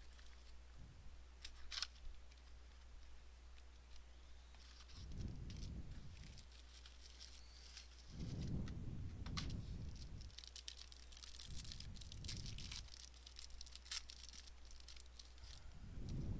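Faint tearing and crinkling of trading-card packaging as a box of cards is opened, with a few sharp clicks and several soft low bumps from handling.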